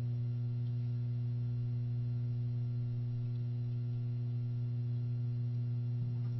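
Steady low electrical hum with fainter overtones above it, running unchanged through the recording.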